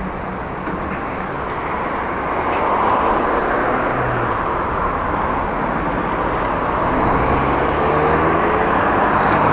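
Road traffic heard from a moving bicycle: a steady rush of tyre and engine noise, with a motor vehicle's engine rising in pitch over the last couple of seconds.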